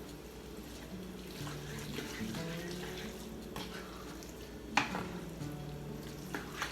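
Taco meat sauce simmering in a large pan with a faint sizzle, under soft background music. A single sharp clink comes near the five-second mark.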